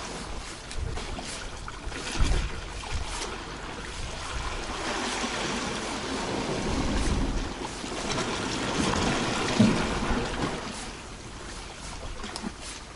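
Sea water washing and trickling against the rocks of the shore, swelling and easing every few seconds.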